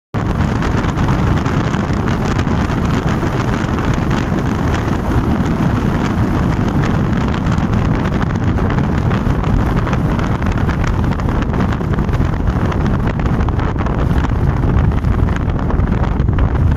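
Very strong wind buffeting the microphone: loud, steady wind noise, heaviest in the low rumble.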